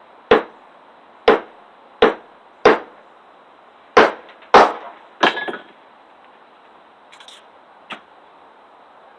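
Small survival multi-tool hatchet chopping and splitting firewood: seven sharp strikes into wood over about five seconds, the last followed by a brief clatter, then a couple of light knocks.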